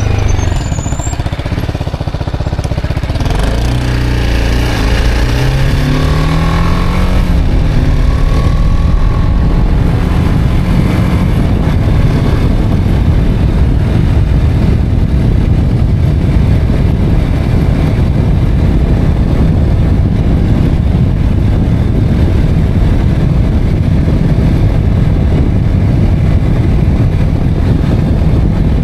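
BMW G 310 R's single-cylinder engine running under way. Its note dips and then climbs a few seconds in as the bike accelerates. After that the sound is a steady, loud low rumble with wind on the microphone.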